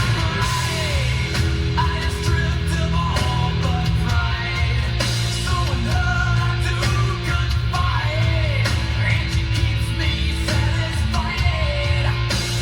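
A song with singing and heavy bass playing through the 2016 Mitsubishi Montero Sport GLS Premium's audio system, heard inside the cabin.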